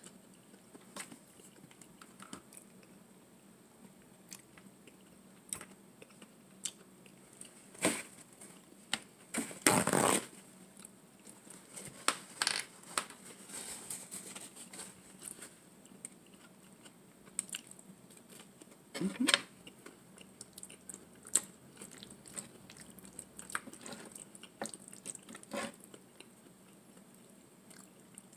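Close-miked eating sounds of a person chewing and biting into garlic bread and bow-tie pasta in meat sauce: soft wet mouth clicks throughout, with a few louder bites now and then.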